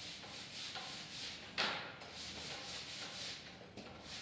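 Paint roller on an extension pole rolling across a ceiling: a rubbing swish that rises and falls with each stroke, one stroke sharper and louder about one and a half seconds in.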